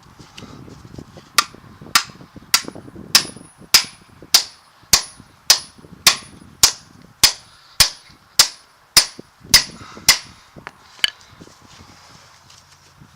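Hammer blows on steel in a steady rhythm: about sixteen strikes a little over half a second apart, each with a bright metallic ring, then one lighter blow. This is a truck driveshaft's U-joint being hammered into its yoke, fitting the new joint.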